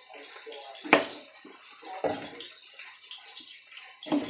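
Kitchen knife chopping through potatoes onto a cutting board: three sharp knocks about a second apart, over a steady hiss.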